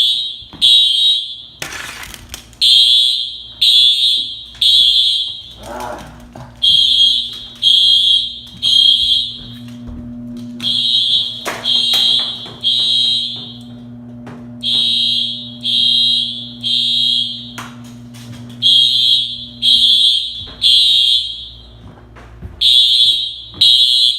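Dormitory fire alarm sounding the temporal-three evacuation pattern: three high beeps about a second apart, then a pause, repeating about every four seconds. A sharp thump about two seconds in, and a steady low hum through the middle.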